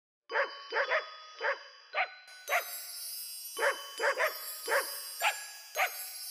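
One-month-old Shih Tzu puppy barking in a run of about a dozen short, high-pitched yips, one or two a second.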